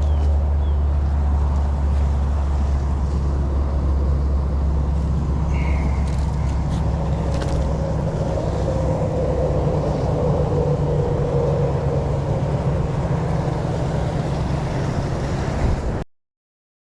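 An engine running steadily with a low hum; it cuts off suddenly about a second before the end.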